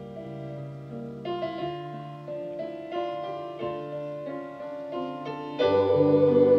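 Piano introduction to a recorded choir anthem, sustained chords moving step by step, with the sound growing suddenly louder and fuller near the end.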